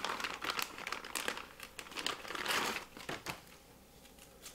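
Clear plastic zip bag crinkling and rustling in irregular bursts as sanding belts are pulled out of it and handled, dying down over the last second.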